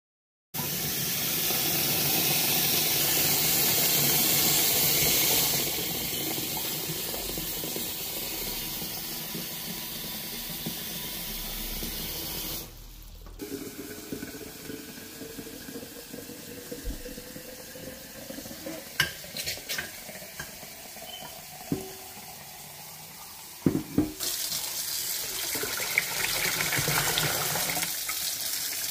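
Water sounds around an unglazed clay pot being seasoned in a pan of water on the stove: first a steady rush of water, then, after a cut, quieter water heating with a faint rising whine and a few sharp pops and ticks, swelling to a rolling boil near the end.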